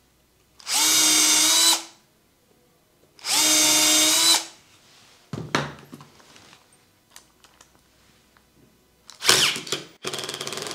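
Cordless drill boring pilot holes into plywood: two separate runs of about a second each, the motor's pitch steady. A few knocks and clicks of tools being handled follow, and near the end an impact driver starts driving a screw with a rapid hammering rattle.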